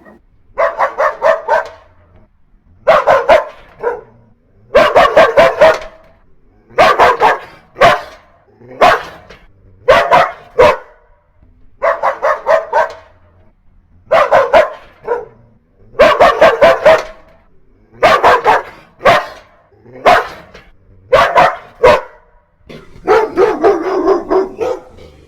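Dogs barking angrily in quick volleys of several barks each, with short pauses between volleys coming about every two seconds. Near the end there is a longer, denser volley.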